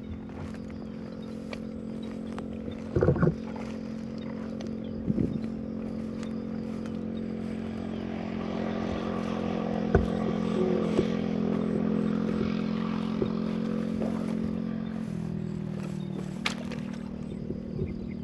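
A small engine runs at a steady pitch, which drops a little about fifteen seconds in. A couple of thumps sound about three and five seconds in.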